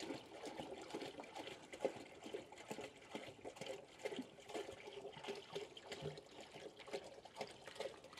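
Water pouring steadily from a plastic jerrycan into a bucket, a thin continuous trickle.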